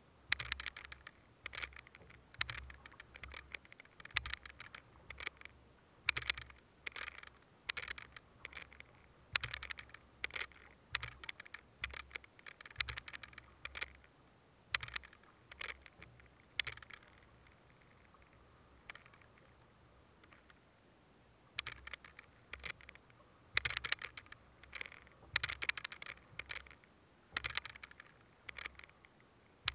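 Fishing handline worked hand over hand by gloved hands, the line scratching and scraping over the edge of a wooden boat in quick irregular bursts, with low knocks under some of them and a pause of a few seconds around the middle.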